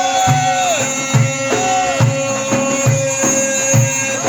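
Instrumental Arabic music: a melody with sliding, bending notes over a long held note, and a steady percussion beat of about two drum hits a second.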